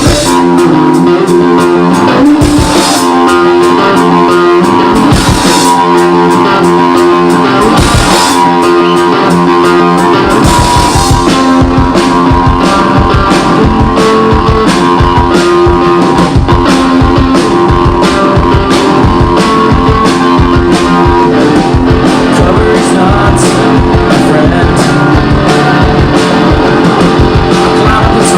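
Live rock band playing an original song, with electric guitar and drum kit. For the first ten seconds or so the guitar rings over a crash every few seconds, then the full band comes in with a steady driving beat.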